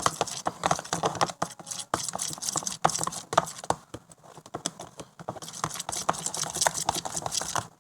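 Homemade slime being worked and squished, giving quick, irregular wet clicks and squelches.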